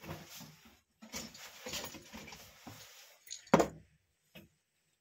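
Electronic scrap being handled on a wooden workbench: circuit boards scraping and rattling against each other, then a sharp knock about three and a half seconds in and a lighter tap just after.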